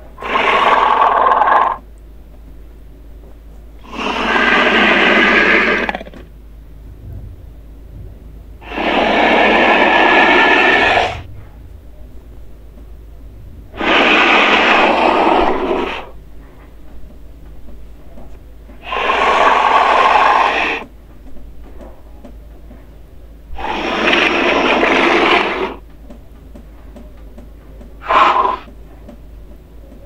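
Made-up Nile monitor lizard sound effects: a series of harsh, breathy hiss-like calls, each lasting one and a half to two seconds and coming about every five seconds, with a shorter one near the end.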